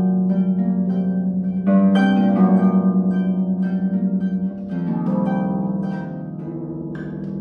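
Concert harp being played: plucked chords and notes ringing on over a held low note. A strong new chord comes in about two seconds in, and the playing grows softer near the end.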